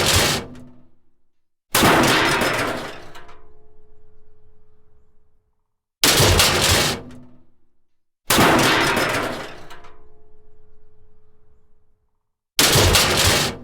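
Metal crash sound effects: a series of sudden loud crashes of clattering metal, about four in all, alternating between short rattling crashes and longer ones whose metallic ringing fades over a couple of seconds.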